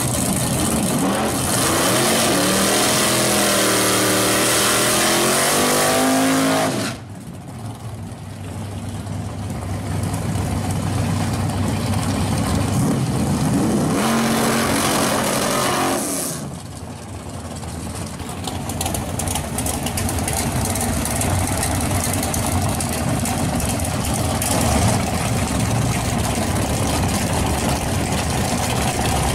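A drag-race G-body Chevrolet Monte Carlo's engine revving hard, its pitch swinging up and down, then cutting back sharply about seven seconds in. It revs up again briefly around the middle, then runs loud and steady.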